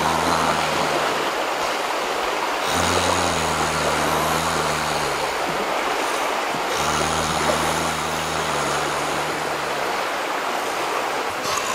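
River water rushing steadily, with a low drone that comes and goes every few seconds.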